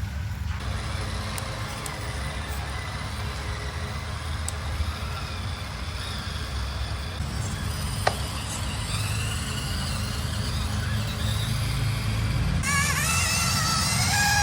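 A steady, low vehicle-engine rumble, with a single sharp click about eight seconds in. Music comes in near the end.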